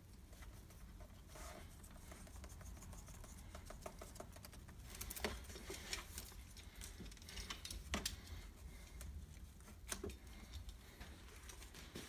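Quiet handling sounds of sealing tape being worked onto a heater box: scattered light clicks and scratchy rustles, with a few sharper ticks about five, eight and ten seconds in.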